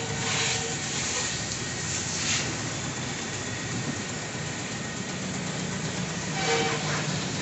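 Steady hiss of a water jet from a hose spraying a car's windshield and bodywork, swelling louder briefly three times as the spray sweeps across.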